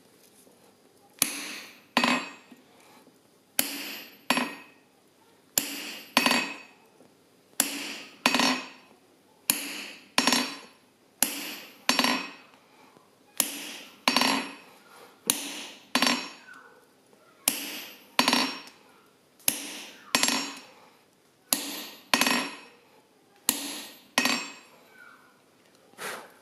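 Hammer striking a hand-held stamping punch to stamp marks into a red-hot steel bottle opener on the anvil. The blows come mostly in pairs, about one pair every two seconds, each with a short metallic ring.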